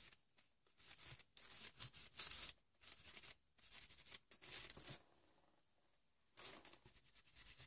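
Fingertips rubbing and scuffing wet paint into a paper collage page in short, irregular strokes, smoothing it to soften harsh edges. Faint, with a pause of over a second near the end before the rubbing starts again.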